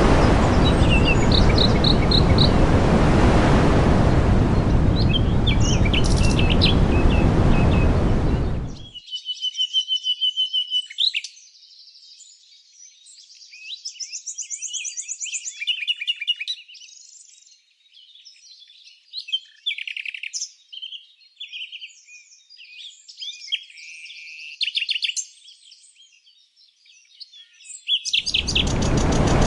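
Songbirds chirping and trilling in quick, varied phrases. For about the first nine seconds and again near the end, a loud steady rushing noise covers them; in between the high chirps and trills are heard on their own.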